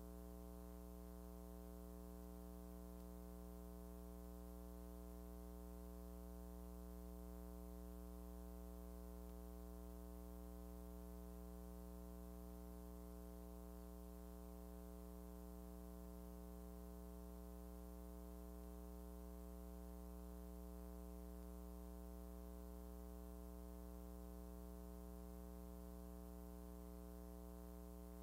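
Faint, steady low hum with a stack of even overtones and no other sound.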